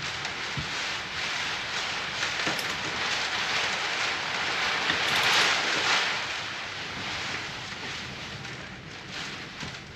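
Rain, a steady hiss that grows louder about five seconds in and eases toward the end, with a couple of faint knocks.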